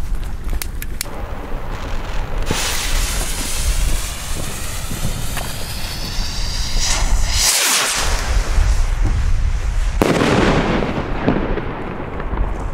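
Fireworks going off: a few sharp pops in the first second, then a long hiss from about two and a half seconds in, and a sudden louder burst about ten seconds in that fades away.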